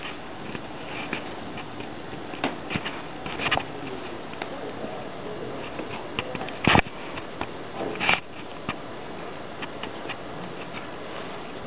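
A cat playing with a toy close to the microphone: scattered scuffles and soft knocks, with two sharper knocks about seven and eight seconds in, over a steady hiss.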